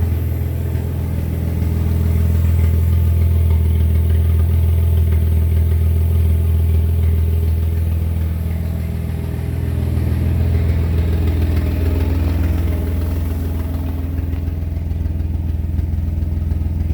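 Jeep Liberty 3.7L V6 engine idling steadily.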